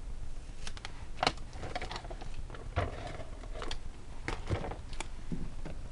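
Irregular light clicks and taps of paper cutouts and craft supplies being handled on a work table, with some paper rustling.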